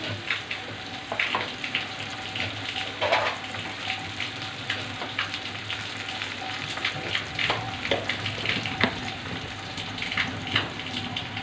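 Onions, whole spices and ginger paste frying in hot oil in a pan: a steady sizzle with irregular crackling pops.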